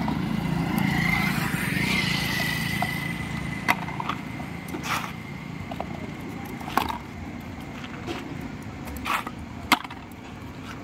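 A motorcycle passing in the first few seconds, its engine hum and a thin whine fading away. Then a metal ladle scraping and knocking on plastic bowls and buckets as dog food is dished out, with several sharp knocks.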